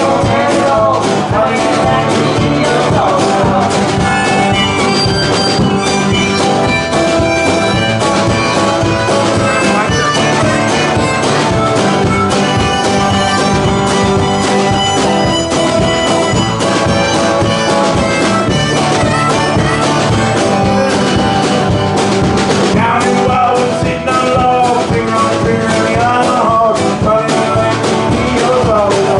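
Live acoustic band playing a bluesy tune, with harmonica leading over strummed guitar, upright bass and drums. A woman's singing is heard at the very start.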